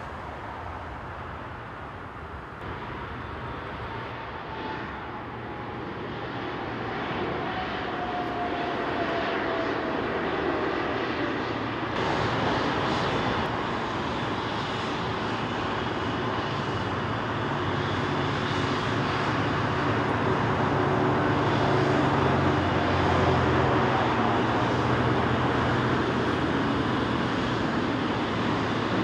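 Boeing 777-300ER's GE90 jet engines: a falling whine as the airliner slows on the runway after landing. After a cut about twelve seconds in, the engines run at taxi power close by, with a steady low drone that grows louder.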